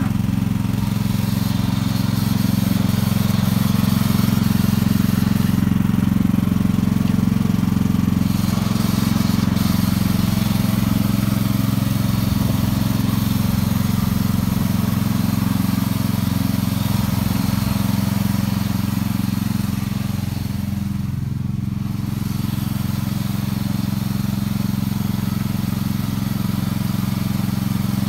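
Wheel Horse garden tractor engine running steadily under load, pulling a plough through garden soil, with a steady low engine note and a slight dip in level about three-quarters of the way through.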